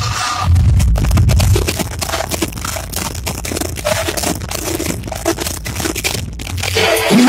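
Loud dance music recorded by an overloaded phone microphone, heavily distorted and crackling, the bass beat coming through in patches.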